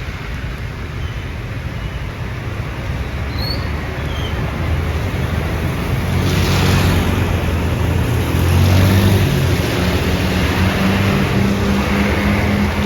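Road traffic with a tour bus's diesel engine running close by, its low hum getting louder about six seconds in.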